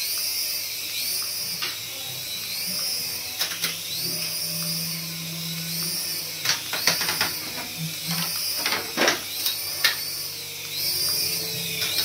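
Small toy RC helicopter's electric rotor motors whining at a high pitch that swells and dips about every second and a quarter as it hovers. A cluster of sharp clicks and knocks comes midway through.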